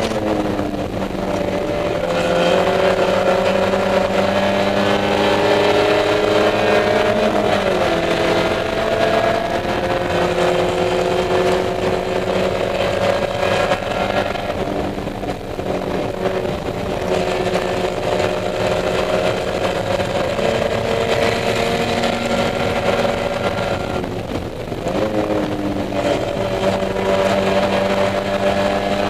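Spec Miata race car's four-cylinder engine heard from inside the cockpit, running hard under load. Its pitch climbs slowly, then falls back three times as the revs drop for shifts and corners.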